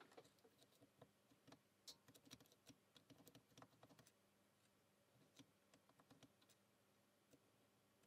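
Very faint, irregular light clicks of a lock pick working the wafers of a Fichet Bauche M2 safe lock, thick in the first half and thinning out after about four seconds.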